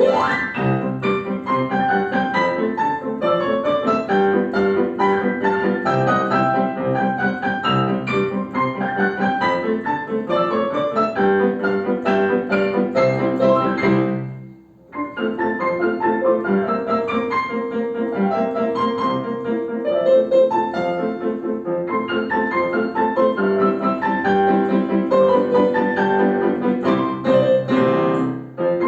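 A piano duet played by two pianists, with a brief break about halfway through before the playing picks up again.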